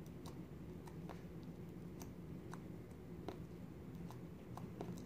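Glue-and-detergent slime being kneaded and squished by hand, giving faint, irregular small clicks and pops, about a dozen in all, over a low steady hum.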